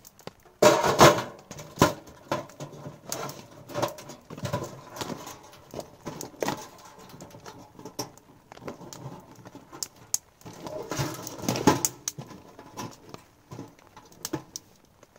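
Irregular patter and rustling, with two louder bursts of rustling about a second in and again around eleven seconds in.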